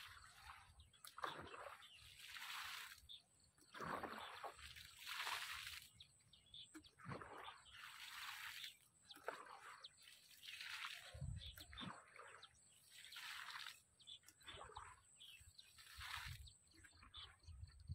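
Water sloshing and splashing in repeated swells, one every one to two seconds.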